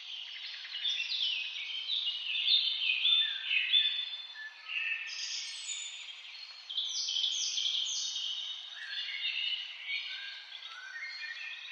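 A forest chorus of several songbirds singing at once: many short, overlapping chirps and whistled phrases, some of them stepping down in pitch, over a faint steady hiss of background noise.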